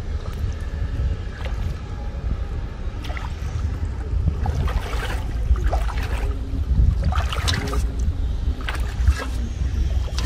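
Water splashing and streaming off a fishing net as it is hauled up by hand through shallow floodwater, in irregular splashes, over a steady low wind rumble on the microphone.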